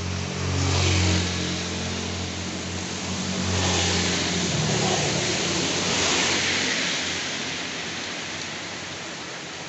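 A motor vehicle passing on a wet road in heavy rain. Its engine hum and the hiss of tyres through water rise, then fade away over several seconds, over the steady sound of the rain.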